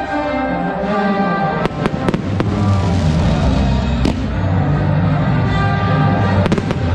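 Fireworks banging over continuous music: a quick run of bangs about two seconds in, a single bang about four seconds in and a pair near the end.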